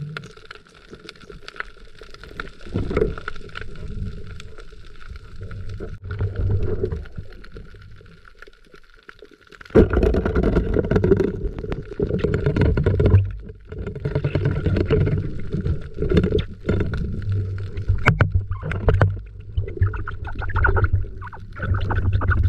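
Muffled water noise picked up through an underwater camera housing while a spearfisher swims at night. About ten seconds in it turns suddenly louder into a dense, rumbling churn of moving water.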